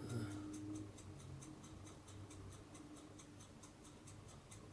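Faint, steady, rapid ticking, about four ticks a second, over a low room hum.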